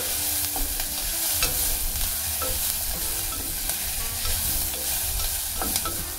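Onions, garlic and ginger with pieces of pork belly sizzling as they sauté in oil in a granite-coated pot, while a plastic slotted spatula stirs and scrapes them, with scattered clicks of the spatula against the pot.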